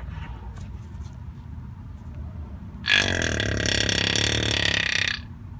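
Plastic quart bottle of gear oil glugging as it pours into the rear differential's fill hole, with air gurgling back into the bottle. The glugging starts about three seconds in, lasts about two seconds, and stops abruptly.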